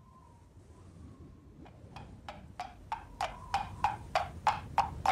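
Hollow wood-block-style percussion knocks in an even rhythm of about three a second, starting about a second and a half in and growing steadily louder.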